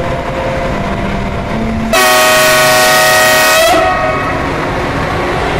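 ICE 1 power car's Makrofon air horn sounding one long blast of just under two seconds, starting about two seconds in, as the train rolls into the platform. Before and after the blast, the train's running noise and a faint motor whine are heard.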